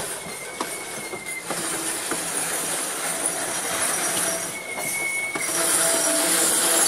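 Loaded grain hopper cars of a freight train rolling past close by, steady wheel-on-rail noise. A brief high-pitched wheel squeal comes twice, once near the start and again about two-thirds through, and the noise grows louder near the end.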